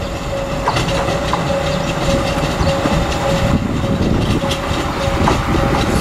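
Moka Railway diesel railcar running slowly into a station: a steady low rumble and a constant whine, with a few sharp clicks of the wheels over rail joints.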